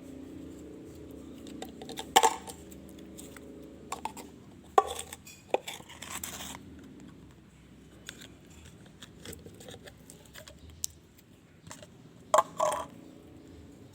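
Slime being handled and squeezed: irregular wet clicks, pops and short squishes, with a few louder pops scattered through and one longer squelch about six seconds in.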